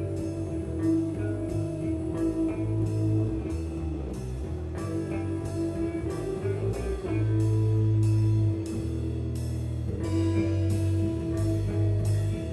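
Rock band playing live on electric guitars, bass guitar and drum kit, with a cymbal struck about twice a second over a held bass line.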